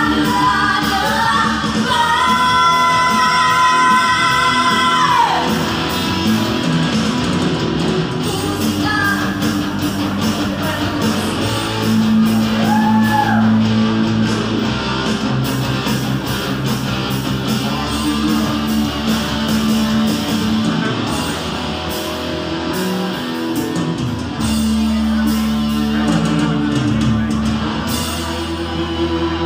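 Live pop-rock band with female vocals, electric guitars and bass. A singer belts a long, wavering held note from about two seconds in to about five seconds in, then the band plays on with only short sung phrases.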